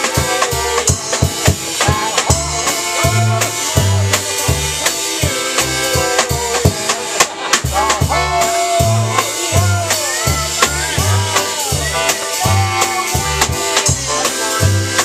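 Two accordions, a piano accordion and a chromatic button accordion, playing an upbeat tune with a drum kit. The accordions' left-hand bass notes alternate in a steady oom-pah under the melody, while the drummer keeps time on snare and cymbals.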